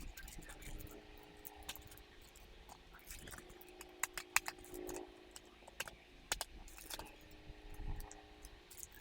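Scattered light clicks and rattles of small hard parts being handled, with a few sharper clicks about four and six seconds in.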